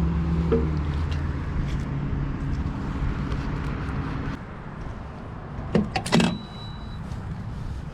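A vehicle engine idling steadily, its hum dropping away about four seconds in. Two sharp knocks follow a couple of seconds later.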